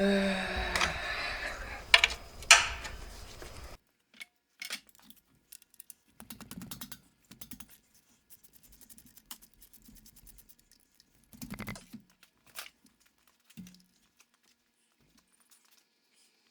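Light scattered clicks and clinks of hand tools and metal parts being handled, with two sharp knocks about two seconds in.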